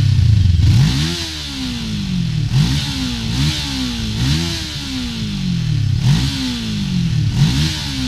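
Macbor Montana XR5 500's parallel-twin engine on its stock exhaust, revved while standing still: about six quick throttle blips, each rising sharply and dropping back toward idle.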